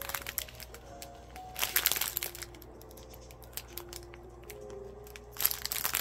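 Clear plastic bags of diamond-painting drills crinkling as they are handled, in a burst about two seconds in and again near the end, over soft background music.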